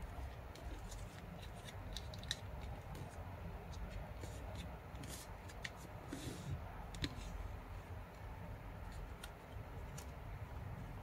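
A sheet of origami paper being handled, folded and creased by hand, rustling with scattered short crackles and paper clicks.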